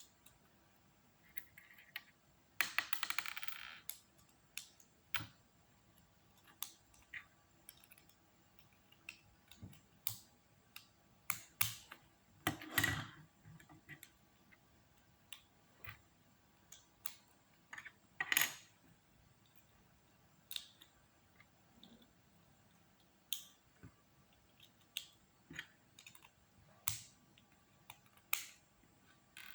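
Plastic Lego Technic pieces being handled and pressed together: scattered sharp clicks and small knocks, with a brief rattle near the start and a few louder knocks midway.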